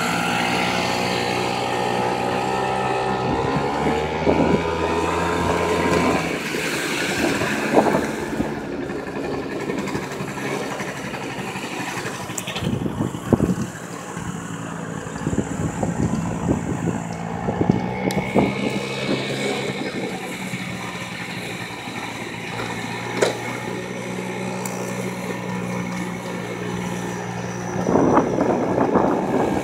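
Small motor scooter engines running while being ridden through town traffic, the engine note climbing as they pull away about four seconds in and again later, with a few short rushes of noise along the way.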